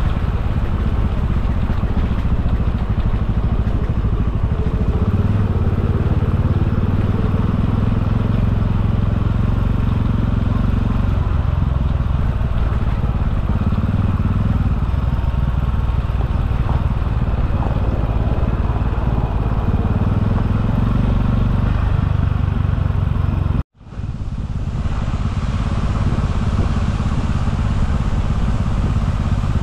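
Motor scooter riding along a rough road, its engine running steadily under loud low rumble of road and wind noise picked up by a bike-mounted action camera. The sound cuts out abruptly about three-quarters of the way through and fades back in.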